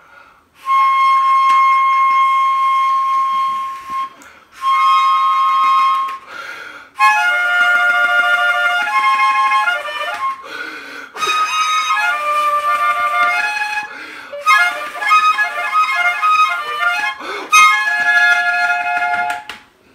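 Cheap plastic toy harmonica blown with one hand cupped and fluttering over it: two long held notes, then a fast jumble of changing notes and chords with short breaks. The harmonica is not tuned to any scale, so its notes sound off.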